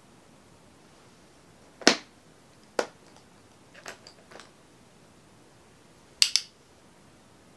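Sharp clicks over a faint steady hiss: one about two seconds in, another a second later, a few fainter ticks around four seconds, and a quick double click near the end.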